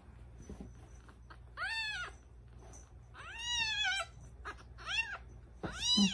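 A ten-day-old kitten mewing while held for bottle-feeding: four thin, high-pitched cries, each rising and falling, the second about a second long and trailing down in pitch.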